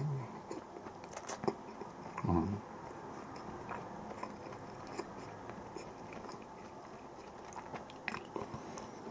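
A person quietly chewing canned mackerel, with scattered small clicks and mouth noises and a short low murmur about two seconds in.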